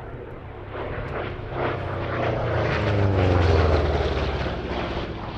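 Republic P-47 Thunderbolt's Pratt & Whitney R-2800 radial piston engine in a flypast. It grows louder to a peak a little past halfway and falls in pitch as it passes, then fades.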